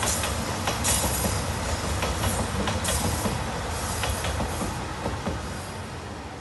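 JR Shikoku 2700 series diesel limited express train passing at speed, its wheels clattering over the rail joints in quick clicks over a steady rumble, fading away near the end.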